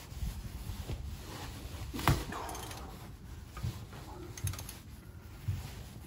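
Scattered light metallic clicks and knocks of a spanner working the crankshaft bolt as a diesel van engine is turned over by hand, the sharpest about two seconds in.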